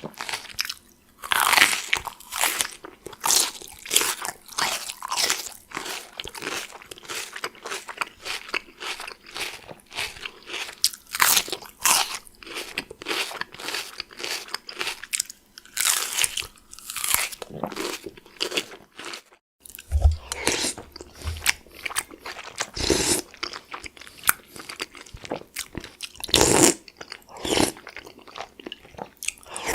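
A person chewing raw bell pepper with rapid, crisp crunching bites. After a brief cut, about two-thirds of the way in, comes a different eating sound: chewing a mouthful of chicken noodle soup, with a few louder bites.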